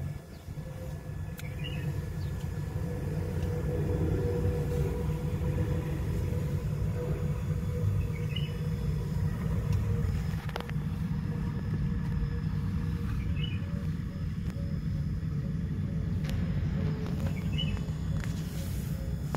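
A steady low rumble with four faint, short high chirps several seconds apart and a single click about ten seconds in.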